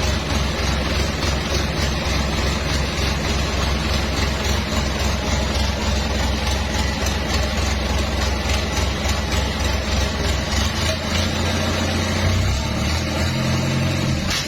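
Mitsubishi PS100 diesel engine, freshly serviced, idling steadily, its speed rising a little near the end.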